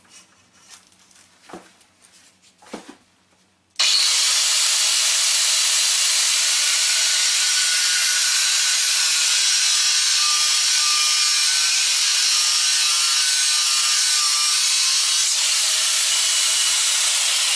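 Doliz BA730 4-inch angle grinder with an abrasive cutting wheel cutting through an 8 mm steel rod. It starts abruptly about four seconds in, after a few faint clicks, then runs as a steady, loud grinding hiss as the wheel bites the steel.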